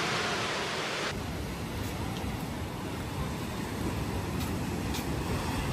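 Ocean surf washing onto a beach, a steady rushing noise; about a second in it changes to a lower, rumbling surf with a few faint clicks.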